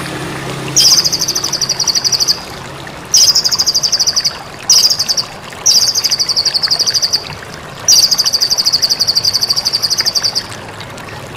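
White-rumped shama (murai batu) singing five bouts of a fast, high-pitched rattling trill, each up to about two and a half seconds long, with short pauses between them.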